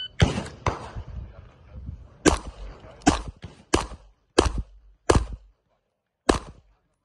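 A string of handgun shots: two close together right at the start, then a steady series about two-thirds of a second apart, eight in all.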